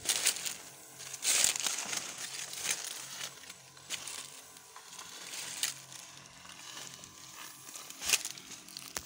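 Dry corn stalks and dead leaves crunching and crackling underfoot as a person walks through them, in irregular crunches, the loudest about a second and a half in.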